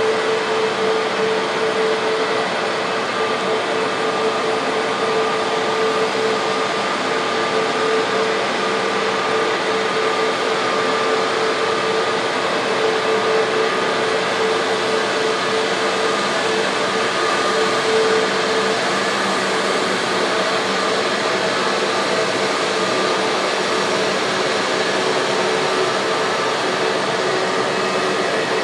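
Jet airliner's turbofan engines running at taxi power, a steady whining rush with a held hum that shifts slightly in pitch near the end.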